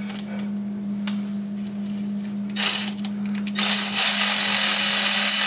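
Cordless electric ratchet with a 5/16 socket running, loosening a hose clamp on the hydraulic suction filter hose: a short burst about two and a half seconds in, then a steady run of about two seconds near the end.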